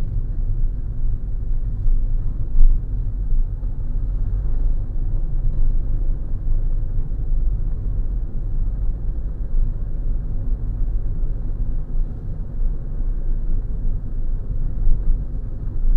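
Steady low rumble of a car driving along a road, heard from inside the cabin, with a few brief louder bumps.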